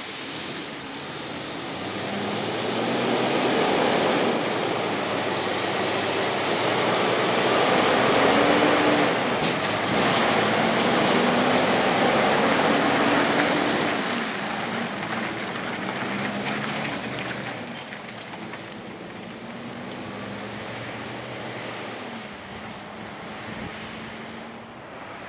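Kenworth K200 cabover prime mover pulling a curtainsider trailer away from a standstill. The diesel's note climbs and drops back several times as it works up through the gears, is loudest as it passes close by about a third of the way in, then fades as the truck drives off.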